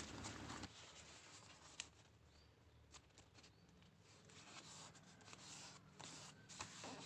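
Near silence with the faint rustle and scrape of a square of origami paper being folded and creased flat by hand, and a few light ticks.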